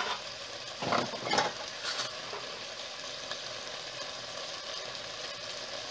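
Diced potatoes and vegetables in tomato paste sizzling steadily in an aluminium pot, with a few short knocks about one to two seconds in.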